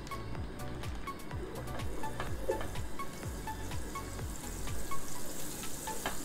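Margarine sizzling as it is rubbed over a hot nonstick pan, the sizzle growing louder near the end, under background music with a steady beat.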